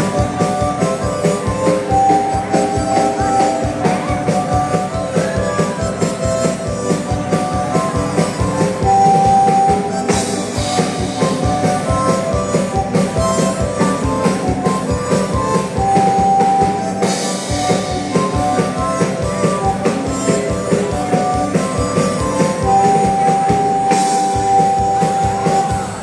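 Live dance music: a bandoneon playing a melody with some long held notes over a steady beat.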